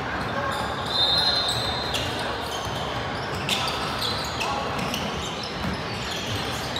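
Basketballs bouncing on a hardwood gym floor, several knocks scattered through, over a steady murmur of voices echoing in a large hall. A short high squeak comes about a second in.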